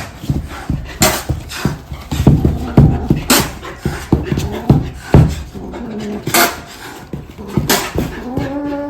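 A dog's scuffling and breathing among irregular sharp knocks and thumps, then a long cat meow that rises and falls in pitch, starting near the end.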